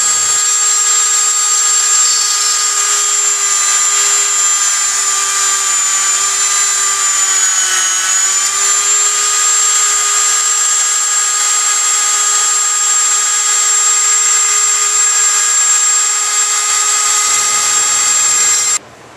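Dremel rotary tool on a flexible shaft, drilling small holes with a small bit through a cracked wooden rifle forend: a steady high-pitched whine that dips briefly in pitch about eight seconds in, then cuts off suddenly near the end.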